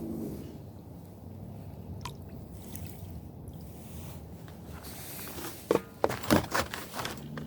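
Water sloshing in a gold pan as roasted ore concentrate is washed back, with a few sharp, louder strokes near the end.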